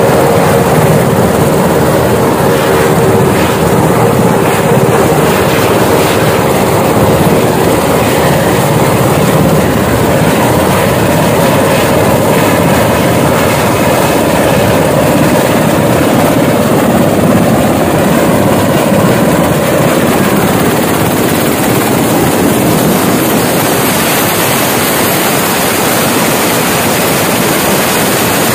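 Sikorsky Black Hawk helicopter running on the ground with its rotors turning: a loud, steady engine whine and rotor noise. Its pitched hum eases slightly about twenty seconds in.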